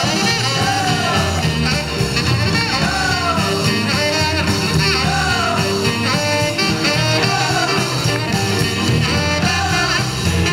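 Upbeat swing-style music with guitar and singing over a steady beat.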